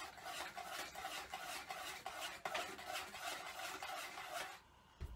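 A spoon stirring boiled maggots and sugar water in an enamelled steel pot: a run of quiet, irregular scrapes and light clinks against the pot, stopping near the end.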